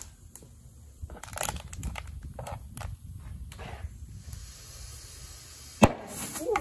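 Compressed air hissing in short spurts as a drag-racing slick with an inner tube is inflated. About six seconds in, one sharp loud pop as the tire's bead snaps onto the wheel's bead seat at about 40 psi, followed by a brief hiss of air.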